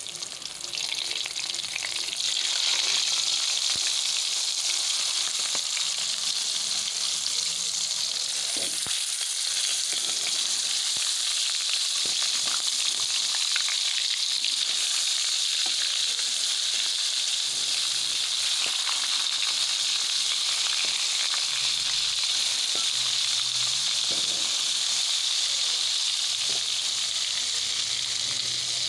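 Pangas fish steaks sizzling as they fry in their own rendered fat in a pan. A steady hissing sizzle that swells over the first two seconds and then holds.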